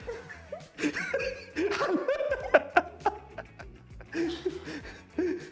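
Chuckling and giggling laughter, strongest from about one to three seconds in, with short bursts again near the end, over quiet background music.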